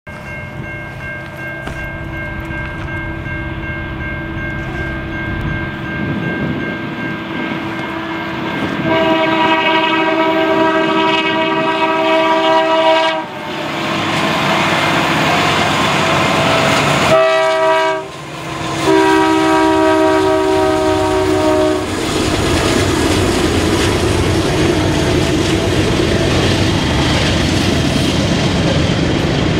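A CN freight train led by an SD75I locomotive sounding its air horn as it approaches: faint at first, then a loud long blast, a brief one and another long one. The horn gives way to the steady rumble of the passing train, wheels clacking over the rail joints.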